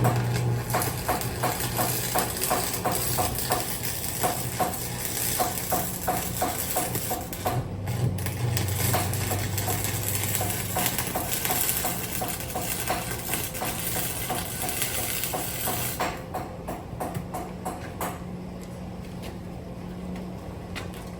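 Work on a car's exhaust system: a steady sizzling hiss with regular metallic ticking, about two to three ticks a second, that stops about ten seconds in, over a low hum.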